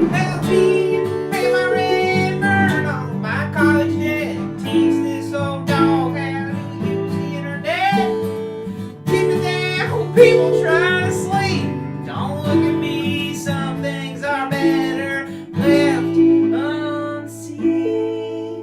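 An instrumental passage of a live band song: acoustic guitar strumming chords, with a lead melody line that slides and bends above them.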